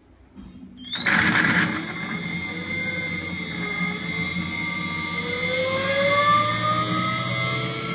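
Brushless electric motor switched on and spinning up a 3D-printed electromagnetic generator: a sudden start about a second in, then a high whine that rises in pitch and levels off into a steady run, with lower tones slowly climbing as it gathers speed.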